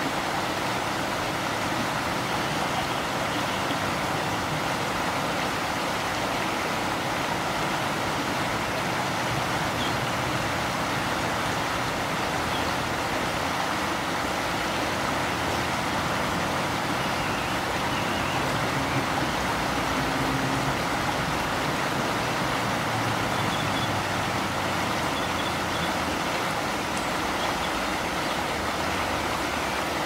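Steady rushing of flowing river water, with a faint low rumble that comes and goes underneath.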